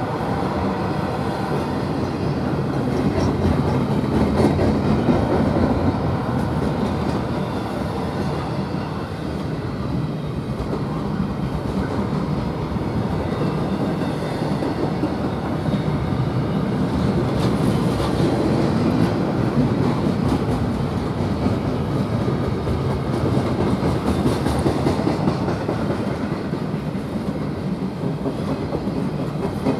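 Eastbound intermodal freight train rolling steadily past, its cars' steel wheels clicking and rumbling over the rail joints.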